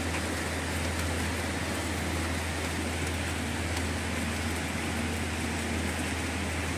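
Steady outdoor background noise: a constant low hum under an even hiss, with no distinct event.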